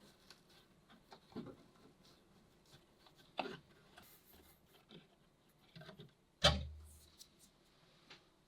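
Quiet hand-work sounds from planting into the wooden pocket of a paludarium: scattered light rustles and taps, with a sharper knock about three and a half seconds in and the loudest thump about six and a half seconds in.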